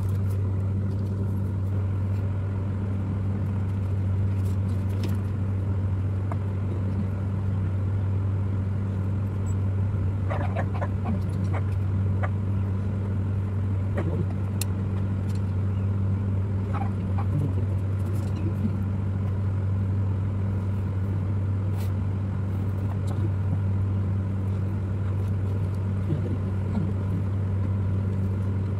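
A steady low hum, with a few faint clicks and knocks from particleboard cabinet panels being handled and fitted together.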